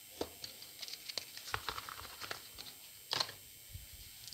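Scattered small clicks and rustles of tools and heatshrink tubing being handled on a workbench, with a louder scrape about three seconds in.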